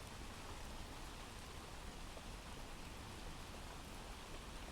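Faint, steady rain from a recorded rain ambience: an even hiss with no single drops standing out.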